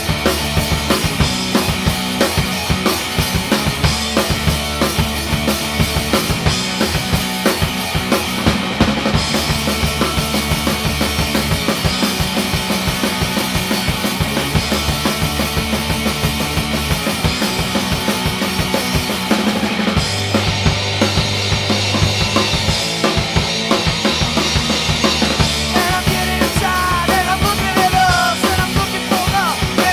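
Instrumental rock from a drums, bass and guitar trio: a steady drum-kit beat under bass and guitar. A wavering higher melodic line comes in over it near the end.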